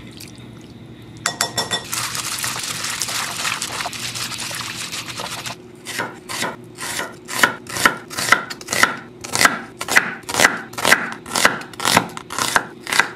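Hands squishing and rubbing marinade into raw chicken pieces in a glass bowl for a few seconds. Then a chef's knife slices an onion on a wooden cutting board in an even rhythm of about two cuts a second, each cut ending in a knock on the board.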